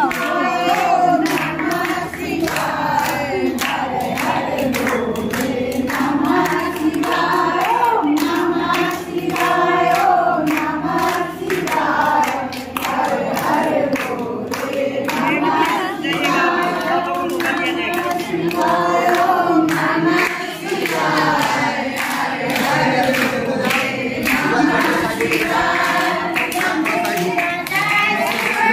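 A group of women singing a devotional bhajan together, with hand claps keeping time.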